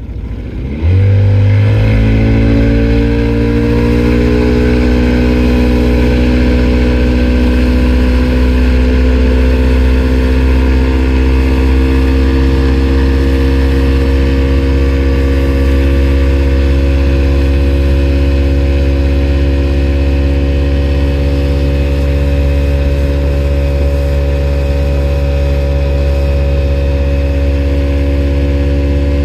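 2000 Johnson 50 hp outboard motor opening up from slow speed, its note rising over the first few seconds as the boat gets onto plane, then running steadily at high speed.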